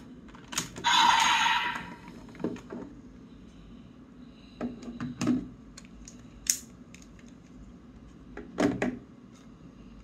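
Plastic parts of a DX XGeats Raise Buckle toy belt buckle being pressed, pulled apart and handled: scattered clicks and knocks. About a second in, a louder noisy sound lasting about a second, with a steady tone in it.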